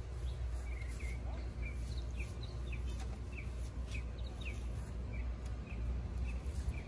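A small bird chirping over and over, short slightly falling chirps about two or three a second, over a steady low rumble.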